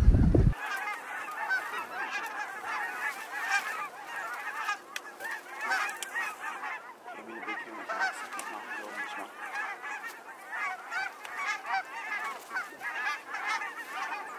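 A large flock of wild geese calling in flight, many overlapping honks and yelps in a constant chatter. A burst of wind rumble on the microphone cuts off sharply about half a second in.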